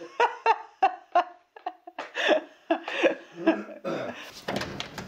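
A woman laughing in quick, high-pitched bursts that fall in pitch, about three a second. About four seconds in, the laughter gives way to a low hum and scattered clatter.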